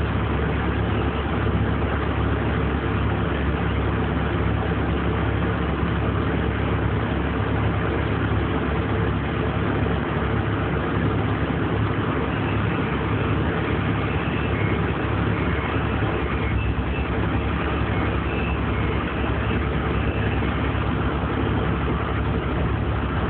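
A heavy machine's engine running steadily, a low, even drone with no change in speed.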